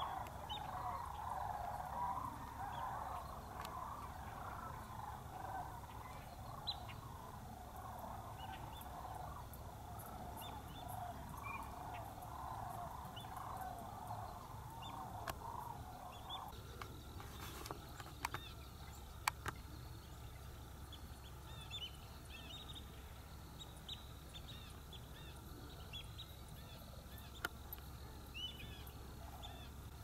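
A large flock of big waterbirds calling in flight, many overlapping calls, stops a little over halfway through. After that there are only scattered short high chirps of small birds over a steady low rumble, with a few sharp clicks.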